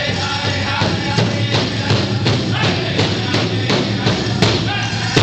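Chicken dance song on a powwow drum: the drum struck at an even beat of nearly three strokes a second, with singers' voices over it.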